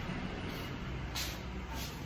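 Low, steady rumble of a vehicle engine, with two brief scuffs about a second in and near the end.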